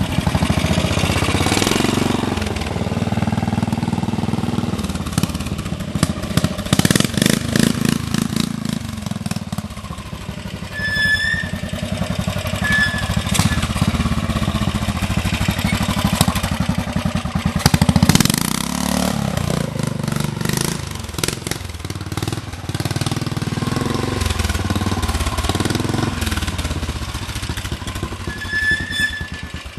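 Vintage trials motorcycle engines running at low revs, the throttle blipped so the revs rise and fall in short surges as the bikes crawl over rough ground.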